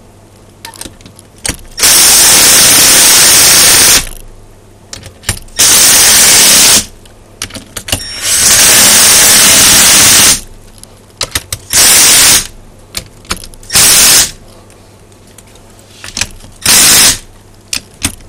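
Cordless impact driver with a socket running in six loud bursts, the longest about two seconds and the last few short, as it drives in and tightens the bolts on a rotator's cast gearbox housing. Small clicks of handling come between the bursts.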